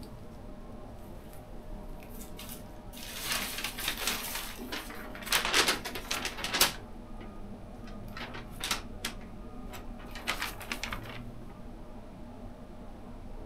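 Crinkling and rustling of a paper tattoo stencil being handled and pressed onto the arm, in several irregular bursts, loudest about five to seven seconds in.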